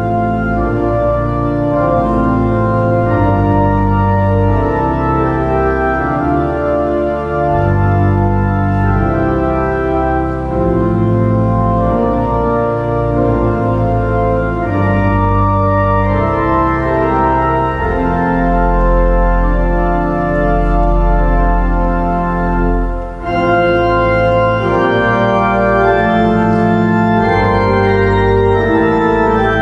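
Church organ playing slow, held chords over deep pedal notes, with a brief break between phrases about three-quarters of the way through.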